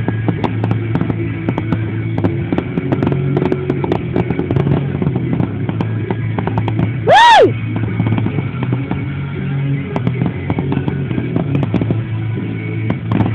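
A fireworks finale goes off in rapid bangs and crackles, with rock music from a radio underneath. About seven seconds in, a short, loud whistle rises and falls.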